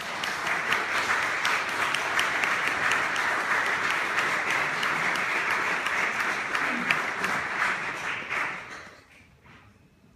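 A congregation applauding, dying away near the end.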